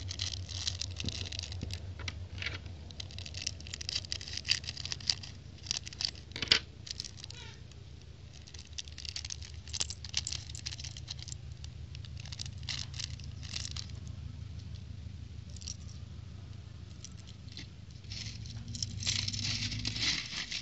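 Thin plastic parts bags crinkling as they are handled and torn open, with small plastic building bricks clicking and rattling against each other and a plastic plate. The crackling is densest in the first few seconds and again near the end, over a low steady rumble.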